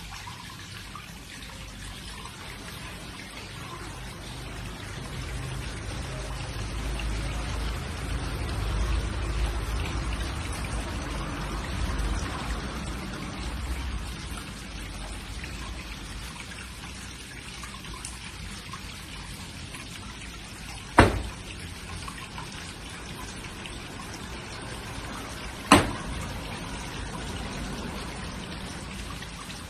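Steady rain with dripping and trickling water, heavier for a while in the middle. Two sharp thumps stand out, the second about five seconds after the first.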